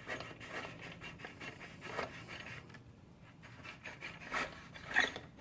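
Faint scraping and rubbing with a few small metallic clicks, about two seconds in and twice near the end, as a motorcycle's steel rear axle is slid free and handled.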